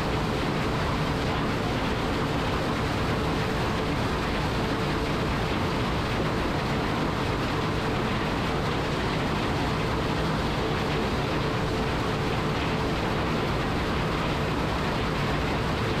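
New Holland CR9060 combine harvester running steadily while harvesting corn: a constant engine and threshing drone with a steady whine above it.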